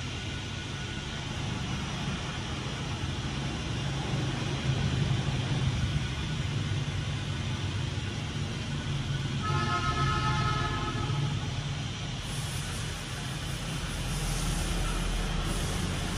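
Outdoor traffic noise: a steady low engine rumble, with a horn sounding for about a second and a half near the middle. A brighter hiss comes up in the last few seconds.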